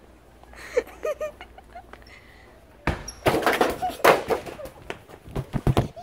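Loud rushing and rubbing with sharp knocks and low thumps from a handheld phone being carried on the run, starting about three seconds in. A few short distant voice sounds come before it, about a second in.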